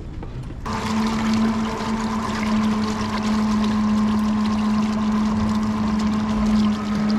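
A small electric motor on the aluminium jon boat switches on suddenly about a second in and hums steadily at one pitch, over a steady rush of moving water.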